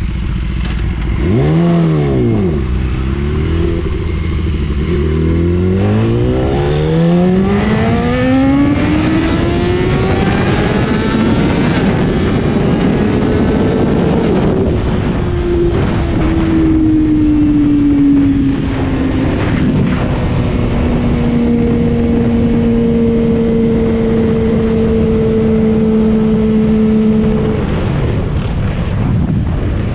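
2014 BMW S1000RR's inline-four engine under hard acceleration. It blips up and back down once, then its pitch climbs steadily for about ten seconds in one long pull, drops, sinks slowly and holds level before fading near the end.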